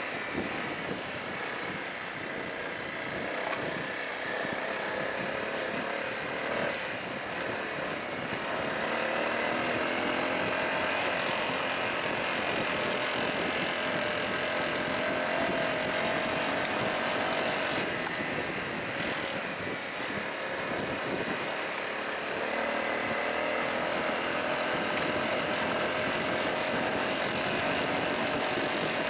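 Honda CRF250L's single-cylinder four-stroke engine running while riding along a gravel road, its note rising and falling with the throttle and easing off twice, over a steady rush of tyre and wind noise.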